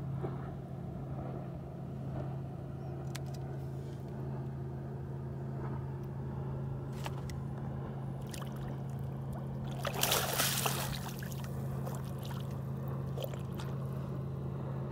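Boat motor running steadily with a low, even hum. A brief loud burst of noise comes about ten seconds in, with a few faint clicks.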